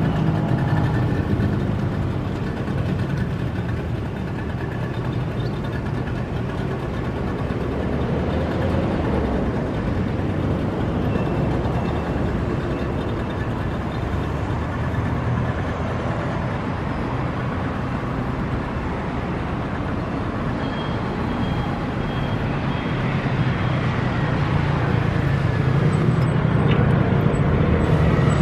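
Steady engine and road traffic noise, motor vehicles running without a break and growing a little louder near the end.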